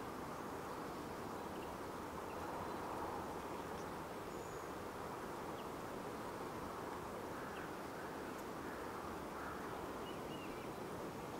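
Steady, quiet outdoor background noise, with a few faint, short, high chirps scattered through it.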